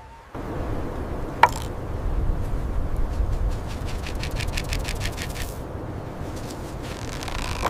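Sand shaken from a small metal sander (pounce pot) onto a letter to dry the ink: a quick, even run of light ticks for a couple of seconds, over a steady low rumble, with one sharp click shortly before.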